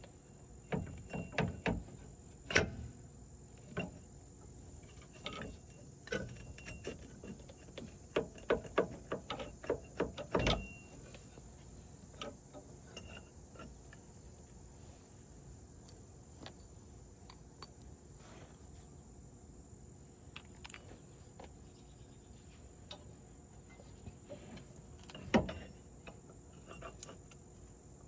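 Hand tools and metal parts clinking and knocking in scattered bursts while a CV axle is being worked on, busiest around ten seconds in. A steady high chirring of crickets runs underneath.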